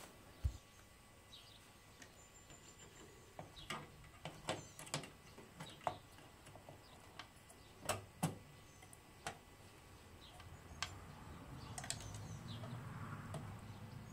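Scattered light clicks and taps of a PCIe Wi-Fi card and its metal bracket being handled and pushed into a PC case's expansion slot, with a low thump about half a second in. A soft rustle of cable handling near the end.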